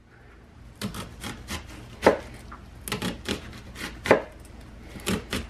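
Chef's knife slicing down through a halved onion onto a plastic cutting board: about a dozen quick, irregularly spaced knife strokes, a few louder than the rest.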